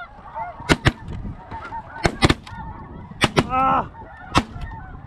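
Several shotguns firing a rapid volley of about six shots, some in quick pairs. Under them, snow geese call steadily with short, high honks.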